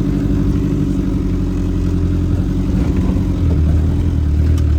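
Off-road vehicle's engine running steadily under way, its note dropping lower about three and a half seconds in.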